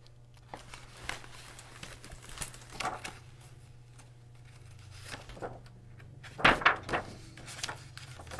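Paper rustling and crinkling as the pages of a large picture book are handled and turned, with the loudest rustles about six and a half seconds in. A low steady hum lies underneath.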